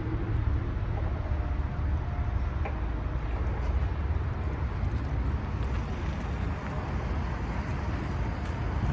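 A steady low rumble throughout, with no speech.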